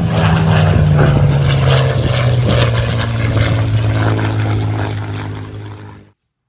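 Hobbyzone Champ RC plane's small electric motor and propeller running at full throttle at launch, a loud steady buzzing hum that eases slightly lower in pitch and cuts off suddenly about six seconds in.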